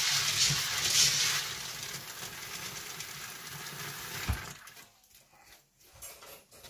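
Kitchen tap water running onto dried soybeans in a stainless steel colander while gloved hands rub and stir them in the final rinse. The tap is shut off about four and a half seconds in, and a few faint knocks follow.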